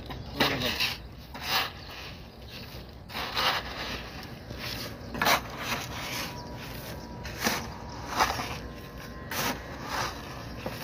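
Short-handled hoe blade scraping through loose gravelly soil around a buried water pipe, in repeated uneven strokes about one every second or so.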